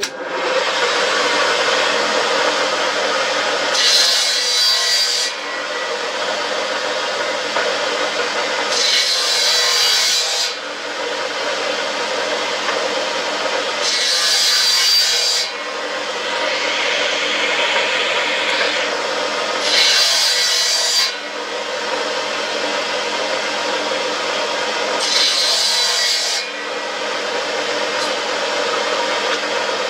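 Table saw's circular blade running steadily and cutting through laminated cricket-bat handles five times, about every five seconds. Each cut adds a higher, hissing rasp of blade in wood lasting over a second.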